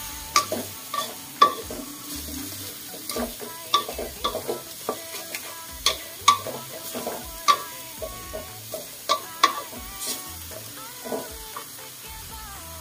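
Wooden spatula scraping and knocking against an aluminium wok as minced pork and pumpkin shoots are stir-fried, over a steady sizzle. The strikes come irregularly, one or two a second, and stop about a second before the end.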